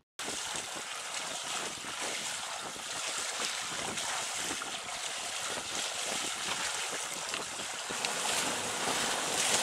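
Steady wind blowing across the microphone over the wash of sea water, heard aboard a sailboat under way.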